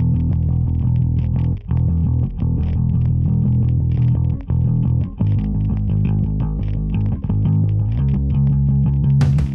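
Background music led by bass guitar and guitar, with a steady beat.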